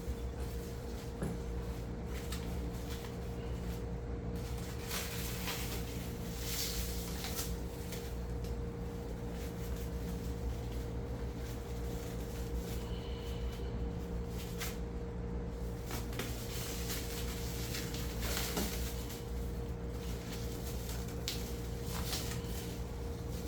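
Box contents being handled and unwrapped: scattered rustling and a few sharp knocks and clicks, over a steady low hum.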